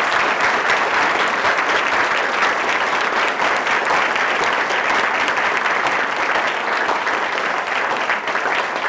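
Audience applauding at length after a reading, a dense steady clapping that thins a little near the end.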